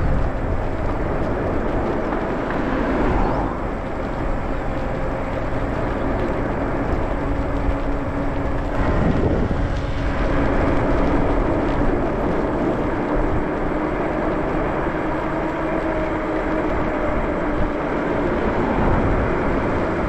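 Wind rush and road noise from riding an electric bike along a paved street, with a steady hum under it and a louder surge about nine seconds in.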